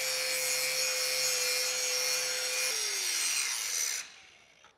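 Angle grinder grinding a steel plate to prep it for welding: a steady motor whine over the hiss of the disc on the metal. About three seconds in the whine drops in pitch as the grinder winds down, and the sound stops about a second later.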